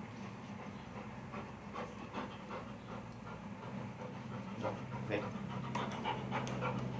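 Yellow Labrador retriever panting in short repeated breaths, which come thicker near the end, over a steady low hum.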